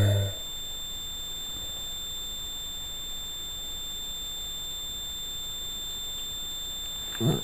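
A low, drawn-out growl cuts off a moment in. Then a steady faint hiss with a thin, high, steady electronic whine, and near the end a short rising voice-like sound begins.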